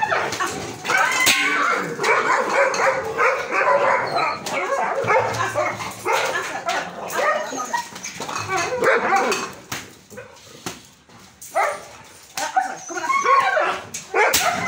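Two female dogs fighting, with barking and yelping. The noise eases off briefly about two-thirds of the way through, then starts up again.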